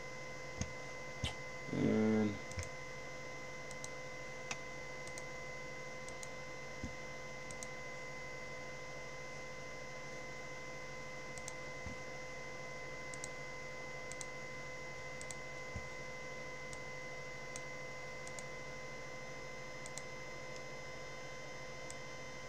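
Scattered single clicks of a computer mouse and keyboard, roughly one every second or two, over a steady background tone. About two seconds in there is a brief wordless vocal sound.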